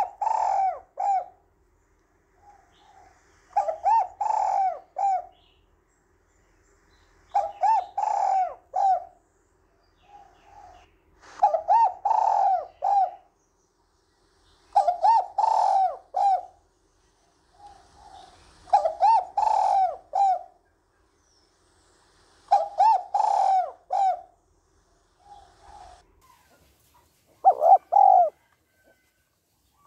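Spotted dove cooing: a repeated multi-note coo phrase, each about a second and a half long with a soft lead-in note, given about every three and a half to four seconds, eight times over.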